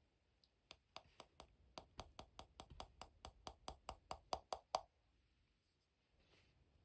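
Slime being worked by hand, giving a quick run of about twenty small clicking pops, roughly five a second, getting louder and then stopping abruptly.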